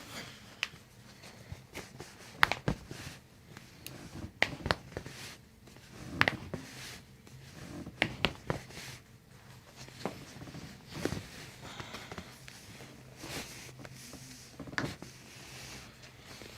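Chiropractic adjustment: a series of sharp joint pops and clicks spread through, the loudest a pair about two and a half seconds in, with soft rustling of hands and clothing between them.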